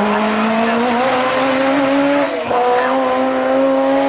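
Motorcycle-engined Mini racing car accelerating hard, its high-revving engine note climbing steadily. About two and a half seconds in the note breaks and drops briefly as it changes up a gear, then climbs again.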